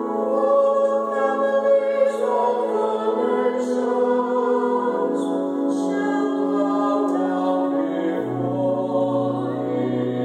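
A man and a woman singing a psalm verse together over a pipe organ accompaniment, in slow held notes. A low organ bass note comes in about eight seconds in.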